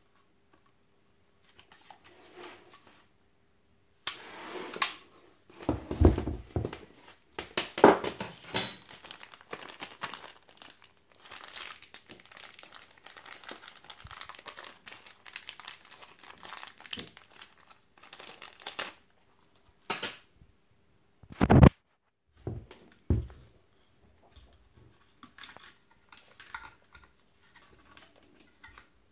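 Hands handling a Parkside PSTK 800 A1 jigsaw and clear plastic: irregular crinkling and rustling, with a few sharp knocks and clicks of the tool's plastic body and base plate against the table.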